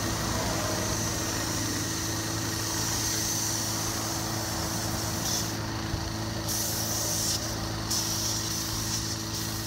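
Paint spray gun hissing as it coats the side of a school bus, over the steady hum of a running motor. The hiss breaks off for moments a few times in the second half.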